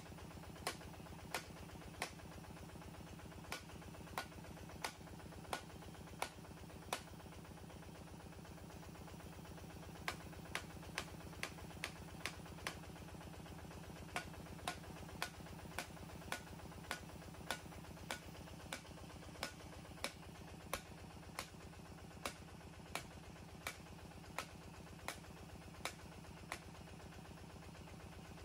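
The engine of a water-well drilling rig running steadily, with a sharp click repeating about one and a half times a second. The clicks stop for about three seconds after some seven seconds, then carry on.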